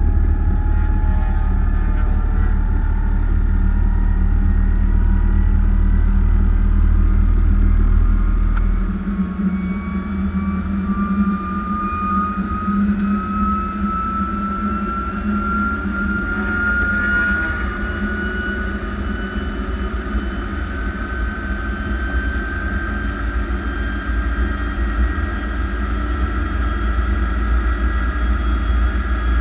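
T-33 jet engine running on the ground. A low rumble drops off sharply about nine seconds in, and from then on a turbine whine climbs slowly and steadily in pitch as the engine spools up.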